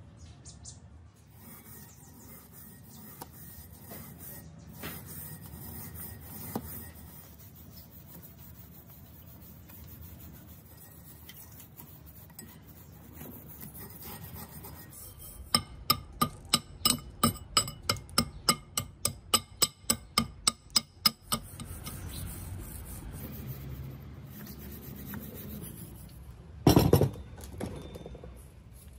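Hand-held metal scraper rasping rust off the grooves of a rusty V-belt pulley: soft scraping at first, then a run of quick, sharp strokes about three a second for some six seconds past the middle. A loud thump near the end.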